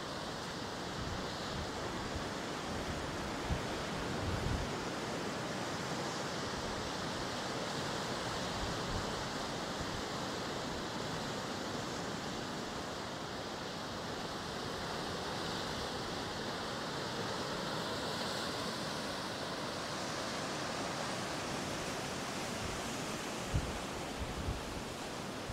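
Steady wash of ocean surf, an even rushing noise with no distinct breaks. A few brief low thumps come about three to four seconds in and again near the end.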